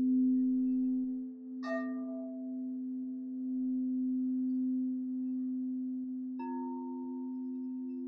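Quartz crystal singing bowls ringing: a low bowl holds a steady tone while two other bowls are struck with a mallet, about one and a half seconds in and again about six and a half seconds in. Each strike adds a higher ringing tone that hangs on, the second with a slow wobble.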